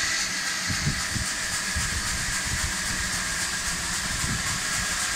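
Sawmill running: a small stationary engine belt-driving a circular saw bench, a steady mechanical din with hiss and a steady high whine, with no cutting heard.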